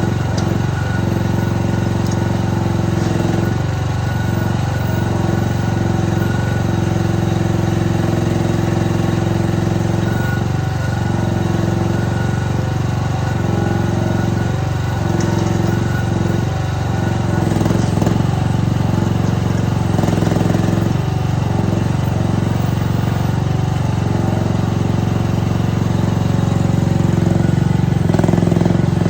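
Chinese mini excavator's small engine running steadily while the machine works, its note dipping briefly now and then.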